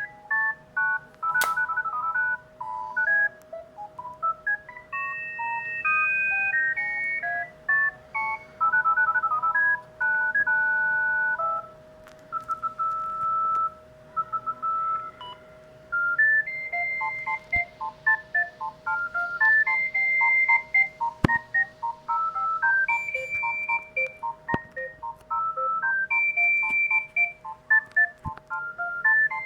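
Panasonic GD75 mobile phone playing ringtone melodies through its small speaker: a tune of short, clean electronic beep notes, sometimes two notes at once. About halfway through, the tune changes to a quick, repeating figure of short notes.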